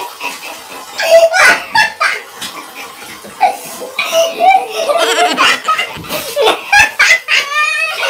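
Hearty laughter in bursts, loudest about a second in and again from about four seconds in, ending in a quick run of repeated ha-ha sounds.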